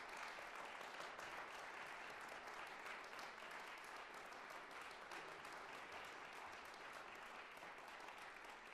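Applause: a steady, dense patter of many hands clapping.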